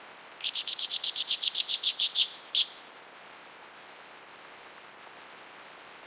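A bird calling: a rapid run of about sixteen short, high notes, roughly eight a second, followed by one more note after a short pause, over a steady faint hiss.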